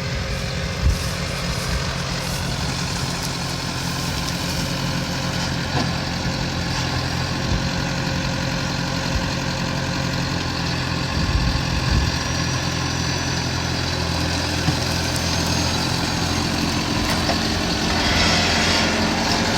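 Farm tractor engine running steadily while it works soil, growing a little louder near the end.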